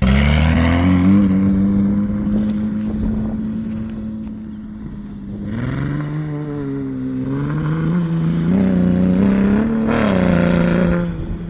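Dune buggy engine running hard as the buggy drives, holding a steady pitch for about five seconds. It then rises and falls with throttle changes and drops away near the end.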